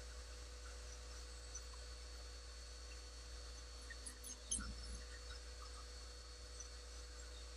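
Faint steady workshop hum with a few light clicks about halfway through, a small metal tool touching the lathe's tool rest and pen blank.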